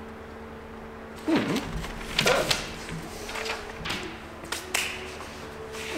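A few short, sharp handling sounds, about a second and two seconds in and again near the end, over a steady low hum.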